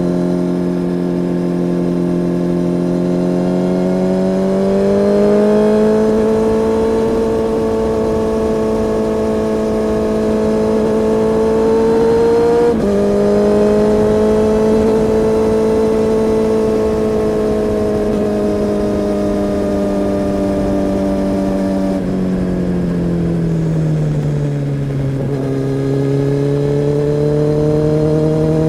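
Kawasaki ZX-10R's inline-four engine and exhaust under way, with a steady pitch that climbs about five seconds in. About 13 seconds in the pitch jumps up sharply. It sags a few seconds from the end, then rises again.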